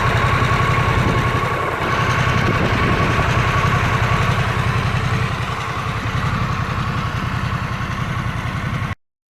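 Harley-Davidson Sportster S's liquid-cooled Revolution Max 1250T V-twin idling on its stock exhaust, a steady even pulse. The sound cuts off suddenly near the end.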